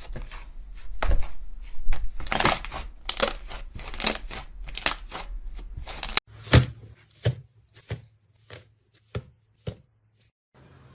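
Slime being squeezed and pressed by hand, giving a crackling squish about once a second. About six seconds in the sound changes suddenly to a few separate sharp pops and clicks with near silence between.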